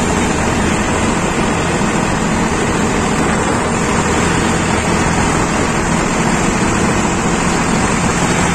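Sonalika tractor's diesel engine running steadily under way at road speed, heard from the driver's seat with a steady low drone and a haze of road and wind noise.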